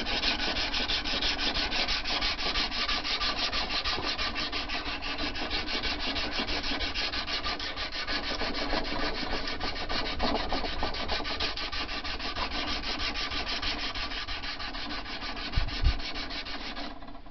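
Abrasive paper wrapped around a file being stroked back and forth along a forged steel knife blade clamped in a vise: hand sanding with 100-grit paper to take out file marks. It makes a steady, even rasping rhythm of fast strokes that stops just before the end, with a couple of low bumps shortly before it stops.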